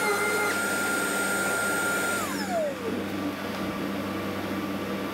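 Random orbital sander running on body filler with a steady whine, then winding down about two seconds in, its pitch falling fast as the pad spins to a stop. A steady rushing noise from the dust-extraction vacuum runs under it and continues.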